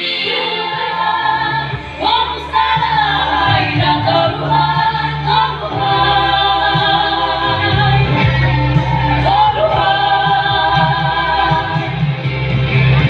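A group of voices singing a traditional Dusun gonding chant, several voices holding long notes with slow glides over a steady low drone. The drone grows stronger about halfway through.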